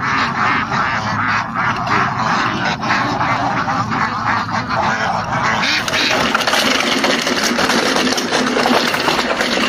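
A large flock of domestic ducks quacking continuously, many calls overlapping into a dense chatter.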